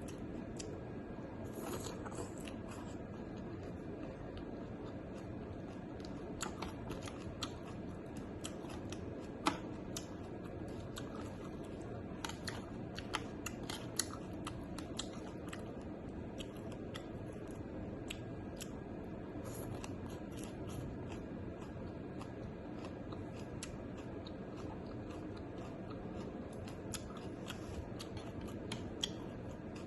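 Close-up chewing and crunching of food, with many short, crisp clicks scattered over a steady low background noise.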